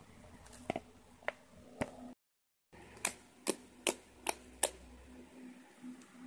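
Freshly activated slime being stirred with a spoon in a plastic bowl, giving a few scattered clicks. After a brief gap of silence, the slime is kneaded by hand and gives a run of sharp clicks and pops, about two a second, over a faint steady hum.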